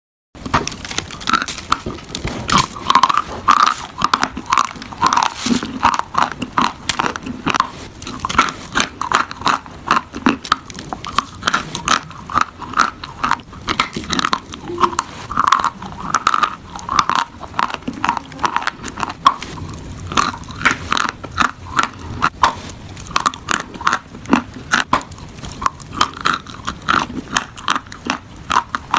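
A person biting into and chewing a block of white chalk close to the microphone: a continuous run of sharp, crisp crunches as pieces snap off and are ground between the teeth.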